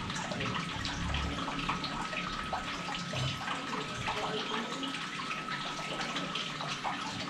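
Steady background hiss with a faint high steady tone, under small scattered clicks and ticks from a Marauder rotary pellet magazine being handled as a pellet is set in it.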